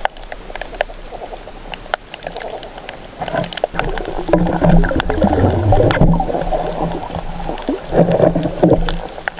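Muffled underwater noise from a submerged camera: a low rumbling wash with louder surges around the middle and near the end, a faint hum, and many scattered sharp clicks and crackles.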